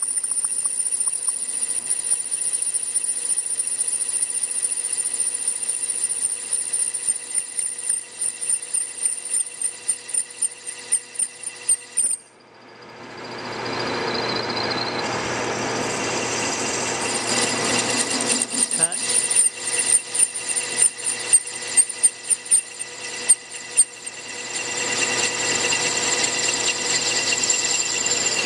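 Metal lathe parting off a stainless steel ring, the parting tool cutting with a steady high squeal. About twelve seconds in the sound drops out briefly, then the cut resumes rougher with rapid chattering clicks before settling back into a steady whine near the end.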